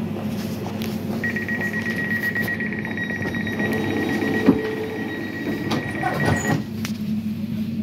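Class 345 train's door-closing warning: a fast-pulsing high beep held for about five seconds while the sliding doors close, with a knock partway through and the doors knocking shut near its end, over the steady hum of the standing train.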